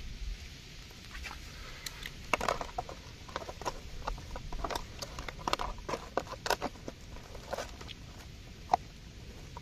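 Hands pulling and tearing at a whole roasted chicken on a palm leaf: irregular small crackles and clicks, thickest in the middle.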